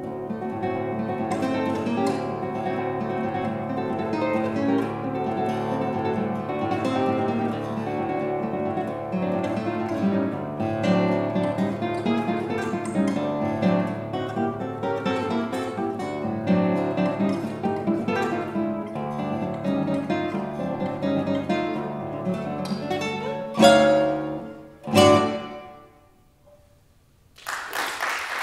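Solo classical guitar played on nylon strings. The piece closes with two loud strummed chords that ring out and fade, and audience applause starts just before the end.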